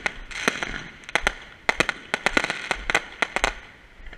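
Fireworks going off: a rapid, irregular run of sharp bangs and pops over crackling. The bangs come thickest in the middle and thin out near the end.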